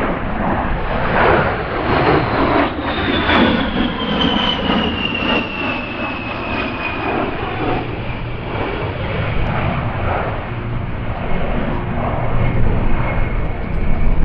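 A-10 Thunderbolt II's twin TF34 turbofan engines in flight: a loud roar with a high whine that falls slowly in pitch.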